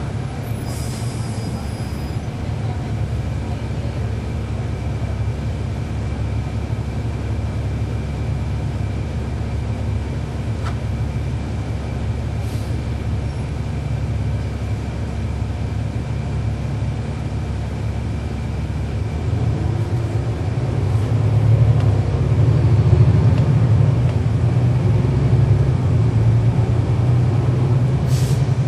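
Cummins ISL9 diesel engine of a 2012 NABI 416.15 transit bus heard from inside the bus, running as a steady low rumble. About two-thirds of the way in it grows louder and rises in pitch as the bus pulls away or speeds up.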